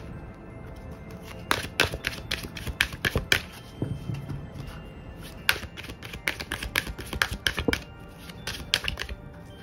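Tarot cards being shuffled by hand: irregular crisp slaps and riffles in quick clusters starting about a second and a half in, with a short lull near the end.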